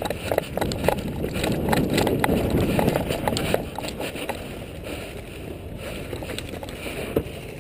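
Running footsteps on packed dirt, with the clatter of tactical gear, heard from a head-mounted camera. The steps are loudest in the first half and ease off after about four seconds as the runner slows at cover.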